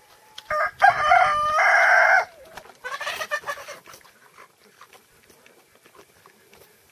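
A rooster crows once for about two seconds, followed by a shorter call about a second later. Faint crunching of a pot-bellied pig chewing its food runs underneath.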